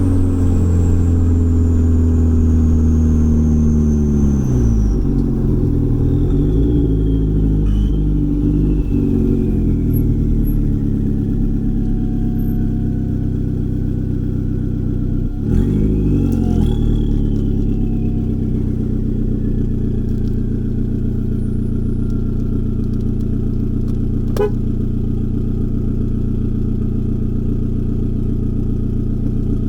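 Turbocharged B5 Audi A4 engine (stock K03 turbo) heard while driving. Over the first few seconds the engine note falls along with a high whine. About halfway through there is a sudden shift in the sound, then the engine runs steadily, with a single sharp click near the end.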